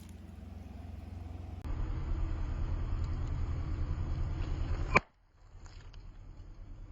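Car engine running at low speed with a low, evenly pulsing rumble. The sound steps louder about a second and a half in, then cuts off with a click about five seconds in before a quieter rumble resumes.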